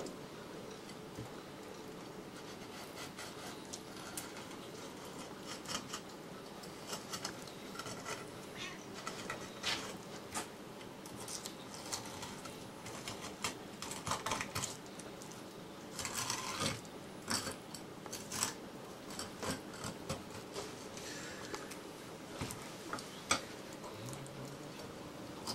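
Kitchen knife cutting a sea bream into fillets on a wooden cutting board: scattered soft scrapes and small clicks as the blade works along the backbone and taps the board.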